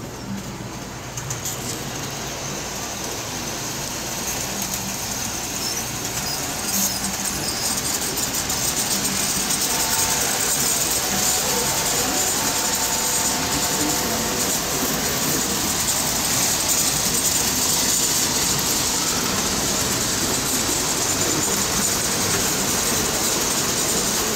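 Electric standard-gauge tinplate toy trains running on three-rail metal track: a steady running noise of wheels and motors that grows louder over the first half as a train comes close.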